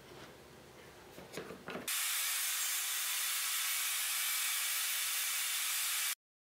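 Faint wood-on-wood knocks as a thin board is set against the sled fence, then a table saw cutting a slot, heard as a loud, steady hiss that starts abruptly about two seconds in and cuts off sharply near the end.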